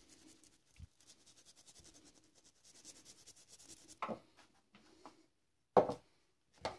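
Faint rapid rubbing strokes on the Bosch alternator's rotor shaft as it is cleaned, for about three seconds, followed by three short knocks in the second half.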